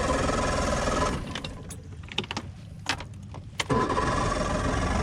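Boat outboard engine being cranked by its electric starter without catching: one cranking attempt stops about a second in, and a second one starts near the end.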